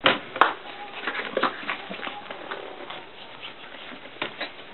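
Puppies scuffling and playing in a wooden pen: a quick, irregular patter of small knocks and scratches from paws and bodies, with a sharper knock about half a second in.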